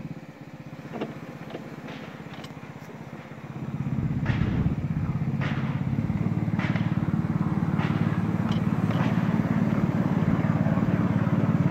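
Petrol-hydraulic miniature locomotive engine running steadily, growing louder about four seconds in and then holding, with scattered short clicks over it.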